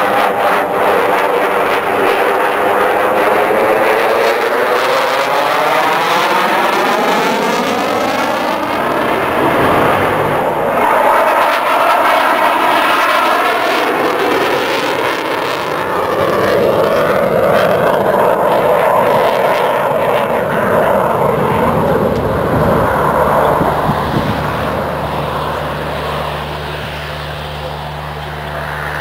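An RAF Eurofighter Typhoon's twin EJ200 turbofan jet engines, heard loud from the ground as the jet flies its display, with a sweeping whoosh that shifts in pitch for the first several seconds as it passes. The jet noise then holds steady and fades near the end, as a low steady hum comes in.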